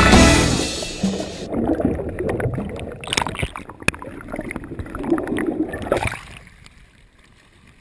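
Background music fades out in the first second or so. Then comes uneven water sloshing and splashing with a few sharp knocks, which dies away near the end.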